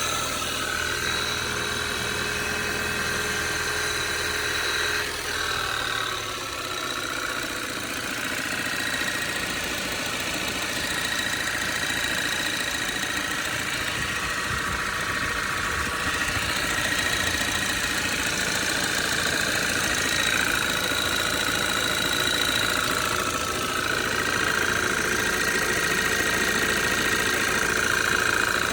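Audi 2.0 TFSI gen2 turbocharged four-cylinder petrol engine idling from a cold start, with a knock in it that the owner likens, without being sure, to a worn piston pin. The engine note changes slightly about six seconds in, then runs on steadily.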